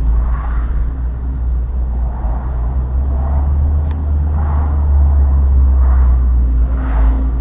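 Honda Civic FD2 Type R rolling at low speed: a steady low rumble with a noise that comes and goes roughly every second or so. This is the abnormal noise that the owner hears below 20 km/h and places around the right front steering shaft; its cause is not known.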